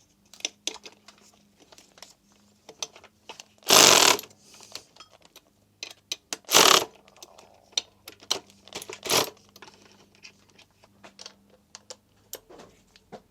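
Hand tools and metal parts being handled on an engine: scattered light clicks and clinks, with three louder, harsher noises about four, seven and nine seconds in.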